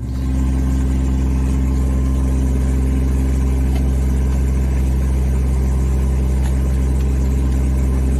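Engine of a digging machine running at a steady idle: a loud, even low drone that does not change.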